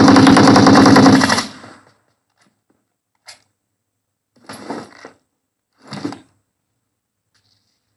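A burst of rapid automatic gunfire that cuts off about a second and a half in, followed by three brief, fainter sounds.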